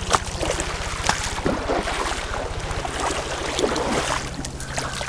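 Feet wading through shallow water in irregular splashing steps, over a steady low rumble of wind on the microphone.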